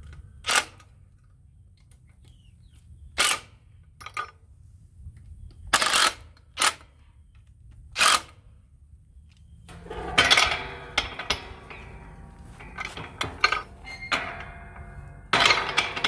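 Cordless drill run in several short trigger bursts, driving screws that fasten a steel gate latch to a wooden post. From about ten seconds in, metal rattling and sharp clanks as the steel gate and latch are worked, with a loud clank near the end.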